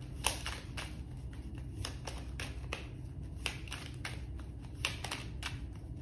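A deck of tarot cards shuffled by hand, the cards sliding and tapping against each other in a run of short, irregular clicks, about three a second.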